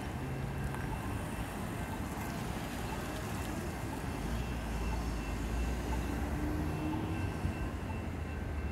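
Electronic railroad crossing bells ringing steadily, a sign that the crossing signals are on and a train is approaching. Road traffic runs underneath, with a low rumble that grows louder about halfway through.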